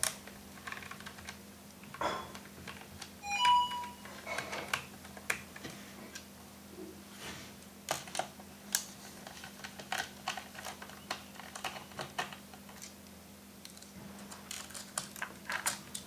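Small screwdriver working the screws of a Dell Vostro 1015 laptop's hard-drive caddy: scattered light metal clicks and ticks as the screws are turned out, over a faint steady hum.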